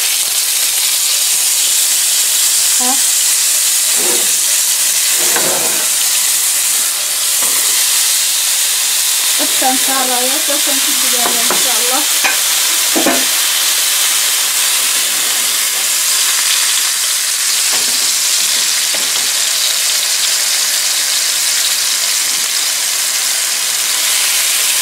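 Seasoned beef steaks frying in hot oil in a nonstick pan: a loud, steady sizzle, with tongs now and then moving the meat.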